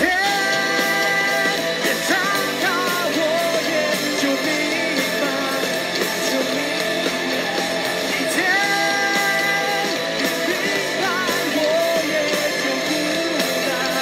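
A rock band playing live: a man singing over electric guitar, holding long notes near the start and again about eight seconds in.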